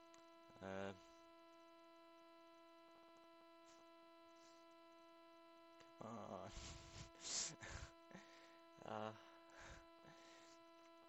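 Steady electrical hum in the recording chain, a constant low-level tone with a ladder of overtones. Between about six and nine seconds in, and briefly near the start, a voice mumbles a few quiet indistinct sounds over it.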